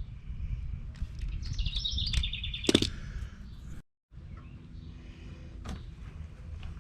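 A bird calling outdoors: a quick trill of high chirps about a second and a half in, over a steady low rumble. A single sharp click comes near the end of the trill, and the sound cuts out completely for a moment just before four seconds in.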